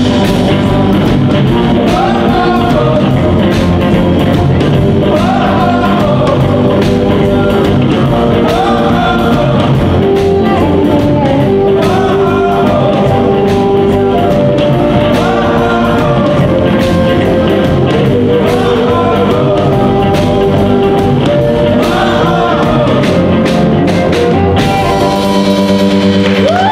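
Live blues-rock band playing loudly: electric guitars and drum kit, with an amplified harmonica playing repeated bending phrases over them.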